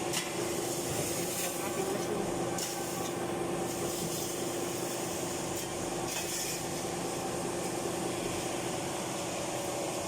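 Steady machine hum: a constant tone over an even background hiss, with a few faint clicks.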